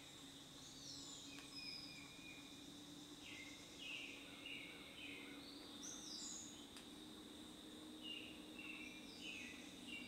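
Faint songbirds singing, short chirped phrases recurring every few seconds, some lower and some higher pitched, over a steady faint hum.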